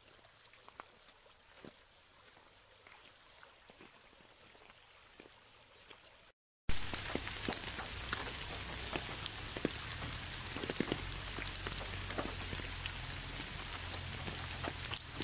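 Rain falling, with many separate drops ticking on a surface. It is faint at first, then after a brief dropout about six seconds in it comes back much louder and denser.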